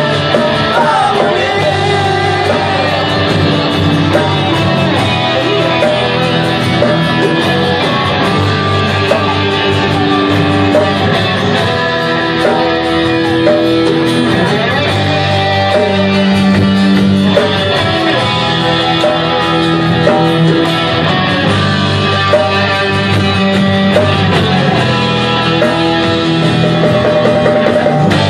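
Live rock band playing: electric guitar and drum kit with a singer on vocals.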